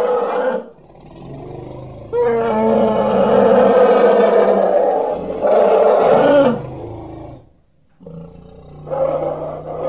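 Asian elephants calling: long, loud, pitched calls that waver and dip in pitch. One call breaks off about half a second in, a long call of about four seconds begins about two seconds in, and another starts near the end.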